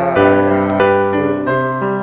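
Music: a slow Indonesian ballad on piano, with a voice singing a word of the lyric about a second in over held piano chords.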